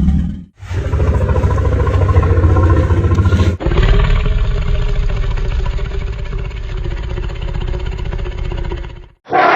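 Synthetic T. rex roar made from elephant and tiger sounds that have been slowed down and lowered in pitch. It is a loud, rough, low rumbling roar lasting about three seconds, followed at once by a second, longer one of about five seconds. Each roar starts and cuts off abruptly.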